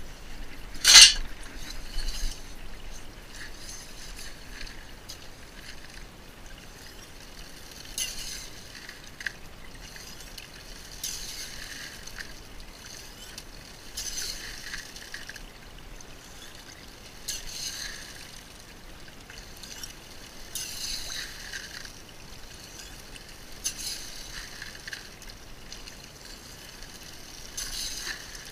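Creek water running over and through a metal gold-prospecting sluice box, with a splashing gurgle that surges about every three seconds. A sharp clink about a second in.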